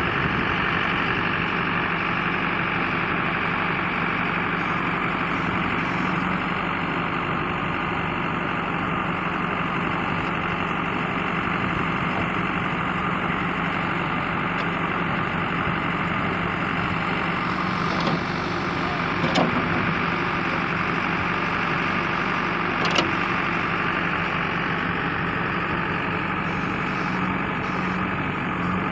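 JCB backhoe loader's diesel engine running steadily while the backhoe digs soil and lifts it into a tractor trolley. Three sharp knocks come in the second half.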